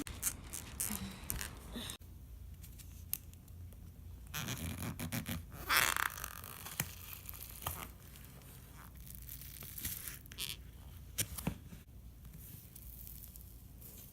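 Cloud slime made with instant snow powder being stretched and squeezed by hand, giving irregular crackly tearing and sticky popping sounds, with the loudest rip about six seconds in.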